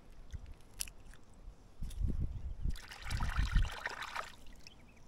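A cooked yabby's claw being cracked and pulled apart by hand: crackling and squishing of shell and meat, loudest between about two and four seconds in, with a few low muffled bumps.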